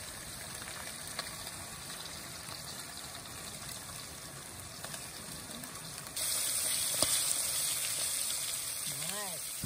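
Flour-dredged trout fillets frying in oil in a cast-iron Dutch oven on a camp stove: a steady sizzle that gets suddenly louder about six seconds in.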